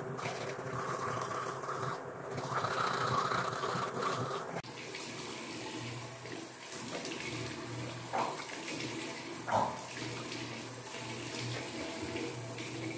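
Water running from a bathroom tap into a sink while the mouth is rinsed after tooth-brushing. Two brief louder spits come about a second and a half apart past the middle.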